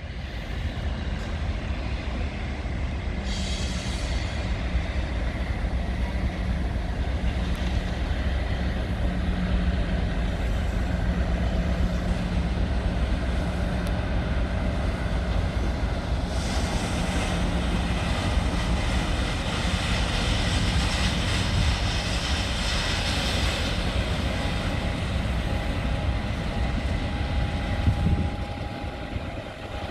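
Class 56 and Class 50 diesel locomotives running in tandem. Their engines give a steady low drone, and a harsher, louder rush of noise is added for several seconds midway. The sound eases off near the end.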